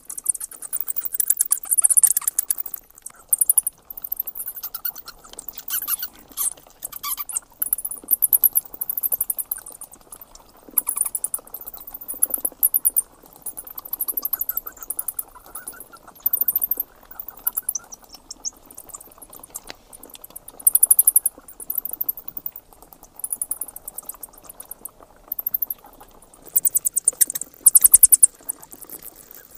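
Bats calling: short bursts of very rapid, high-pitched clicking and chittering, repeating every second or two.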